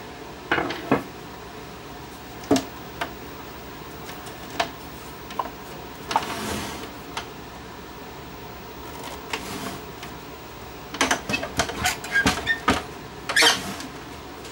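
Clicks, knocks and a brief scrape of plastic and metal parts being handled as the video deck is worked out of a CRT TV-VCR combo, with a quick run of clicks near the end, over steady room noise.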